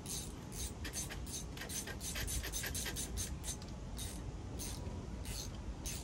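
Quick, irregular scraping and rubbing strokes, a few a second, from hand work at the open service panel of an outdoor air-conditioning unit, over a steady low rumble.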